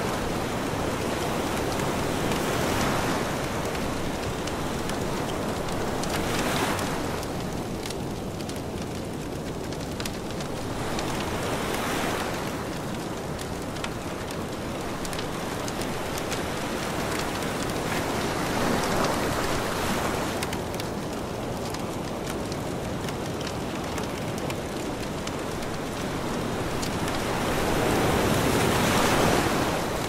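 Sea waves washing onto a pebble beach, the wash swelling and ebbing every few seconds and loudest near the end, with a wood campfire crackling throughout.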